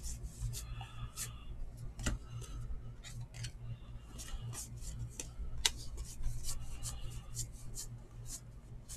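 Baseball trading cards being thumbed through by hand, each card slid off the stack with a short flick and swish of card stock, irregularly about two a second.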